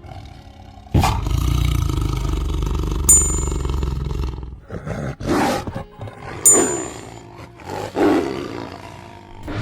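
A big cat roaring: one long, deep roar starting about a second in, followed by a series of shorter calls.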